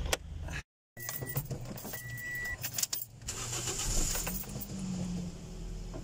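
Car keys jangling on the ignition key ring of a Toyota Vios, with a click at the start and two short high beeps about one and two seconds in.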